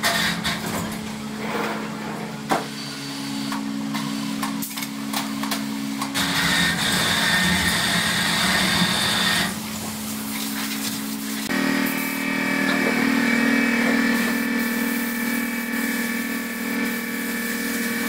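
Workshop machinery running with a steady hum and a hiss of compressed air. The sound changes abruptly twice: a hissier stretch from about six to nine seconds in, then a steadier, louder hum from about eleven seconds in.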